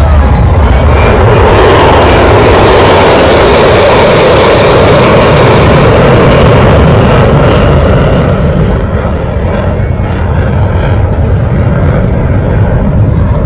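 Fighter jet flying past overhead: a loud, steady rush of jet engine noise that eases off slightly about eight seconds in.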